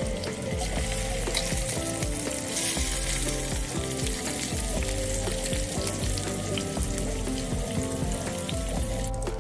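Fish steaks sizzling and crackling in hot oil in a frying pan as more pieces are laid in, over background music.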